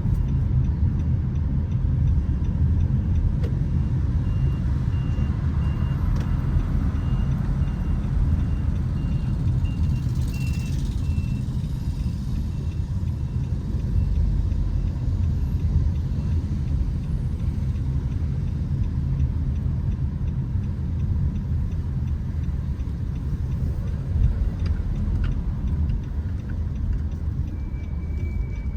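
City street traffic noise: a steady low rumble of passing vehicles. A faint, high repeated beeping runs for about ten seconds in the first half.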